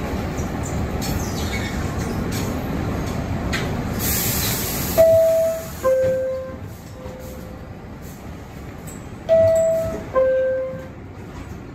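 R62A subway car running with a steady rumble, which drops away about five seconds in after a short high hiss of air as the train stops. A two-note falling ding-dong chime then sounds twice.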